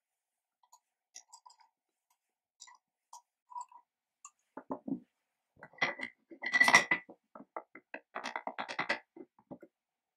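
Small steel parts of a chain mortiser's adjustment mechanism clicking and clinking as they are fitted by hand. Faint light ticks come first, then from about halfway in a run of louder metal clinks and scrapes, loudest near the middle, as a slotted steel bar is set over its stud.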